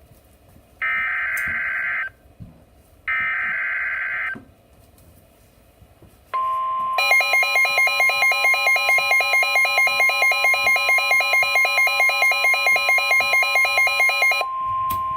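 Emergency Alert System data header: two one-second bursts of buzzing data tones, each followed by a short gap. About six seconds in, the steady weather-radio warning alarm tone near 1 kHz begins and holds for about nine seconds. For most of its length it is overlaid by a shrill alarm beep pulsing about four times a second.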